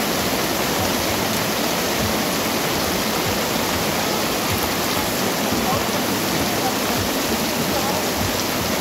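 Heavy rain pouring down on pavement and tarpaulin stall awnings: a dense, steady hiss that holds at one level throughout.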